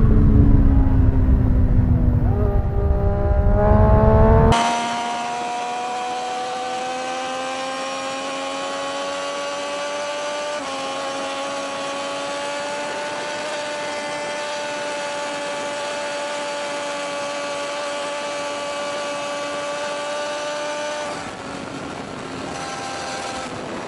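Sport motorcycle engine running at high revs, at first under heavy wind rush on the microphone. After a sudden change about four and a half seconds in, the wind drops away and the engine's steady whine climbs slowly in pitch, dipping briefly about ten seconds in.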